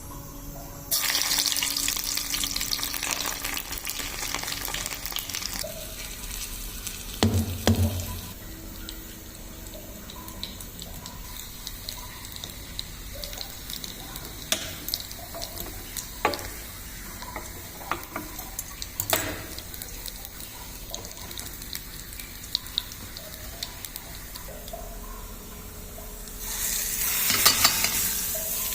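Garlic cloves and ajwain sizzling in hot mustard oil in a pan, as the oil is heated to draw out their flavour, with occasional clicks and knocks of stirring. The sizzle is loudest for the first few seconds, settles lower, and swells again near the end.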